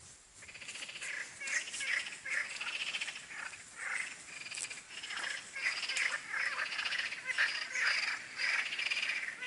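A chorus of frogs calling, many overlapping rapid rattling calls, one after another with hardly a break.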